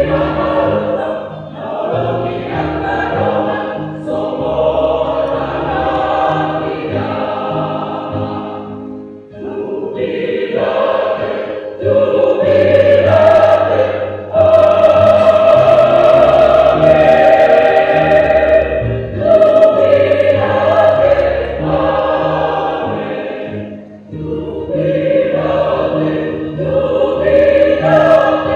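Mixed church choir of men and women singing a Batak-language hymn in parts. The phrases are sung with short breaks between them, and the song swells loudest through the middle passage.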